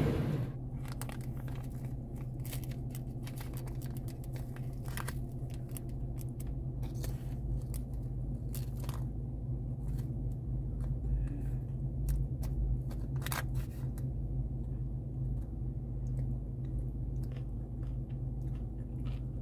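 Crunching and crinkling as a plastic spoon digs into an open bag of chips loaded with cheese sauce and salsa: irregular sharp crunches over a steady low hum.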